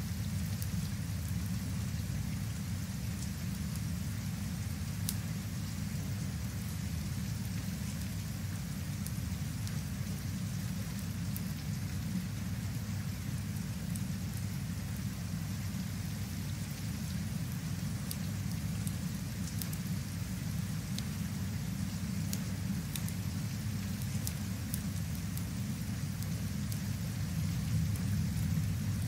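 Steady rain ambience: an even hiss of rain over a continuous low rumble, with scattered light ticks.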